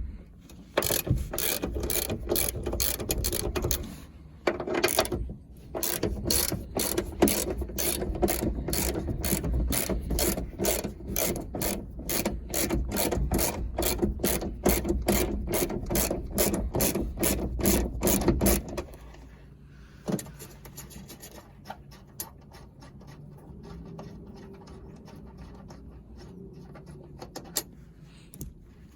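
Socket ratchet wrench clicking rapidly and steadily, about four clicks a second, as a seat-belt mounting bolt is turned. The clicking pauses briefly near the start, and after about two-thirds of the way through it becomes fainter and sparser.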